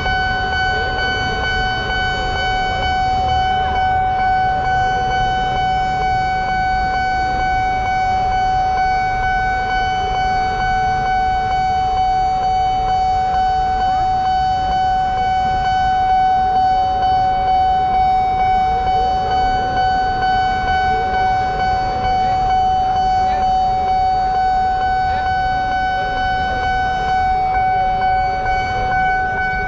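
Railway level-crossing warning alarm sounding one steady, unchanging tone, signalling that a train is approaching and the gates are closed. About halfway through, a second, lower tone starts beeping on and off about once a second, over a steady low rumble of traffic.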